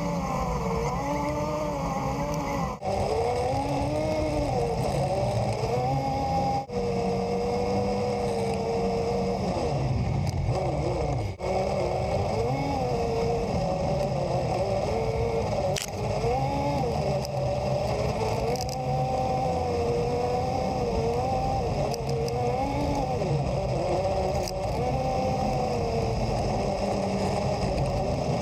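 Polaris RZR 800 side-by-side's twin-cylinder engine running under way on a dirt trail, its pitch rising and falling with the throttle over a low drivetrain rumble. The sound dips briefly a few times in the first dozen seconds.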